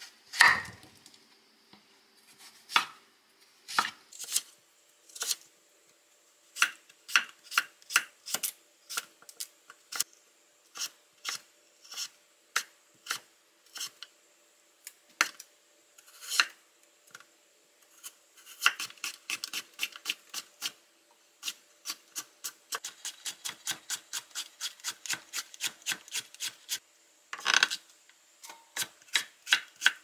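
Chef's knife cutting a young green squash on a wooden cutting board. Single cuts come a few seconds apart at first, then quick runs of chopping at about five strokes a second as the squash is cut into thin strips, with one longer, louder stroke near the end.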